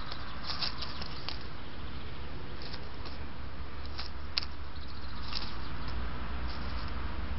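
Scattered rustles and clicks in dry leaf litter as a Eurasian jay hops and pecks around, with one sharp click about four and a half seconds in. Under them runs the steady low hum and hiss of a trail camera's recording.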